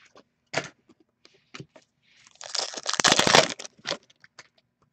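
Trading cards being flipped through by hand: card stock clicking and snapping against card stock, with a louder stretch of rustling and sliding lasting about a second, starting around two and a half seconds in.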